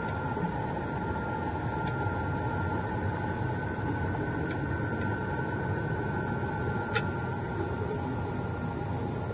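Muffled underwater noise: a steady low rumbling hiss with two faint steady whines, and a single sharp click about seven seconds in.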